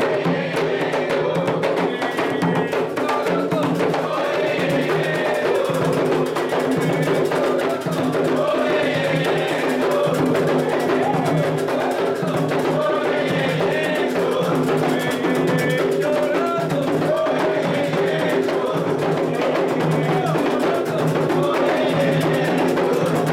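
Candomblé atabaque drums playing a steady ritual rhythm, with group singing of a chant for the orixá Oxum.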